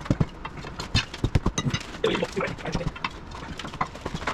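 Irregular knocks and clanks, many in quick succession, from hand work on a Bobcat T595 skid steer's rubber track.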